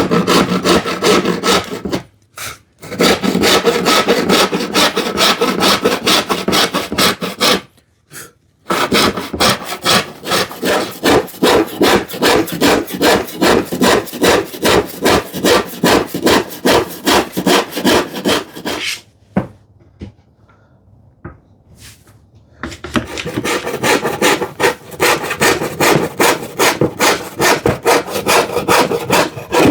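Tenon saw cutting through plywood by hand, with steady back-and-forth strokes. It saws in four bouts, pausing briefly twice and for a few seconds about two-thirds of the way through.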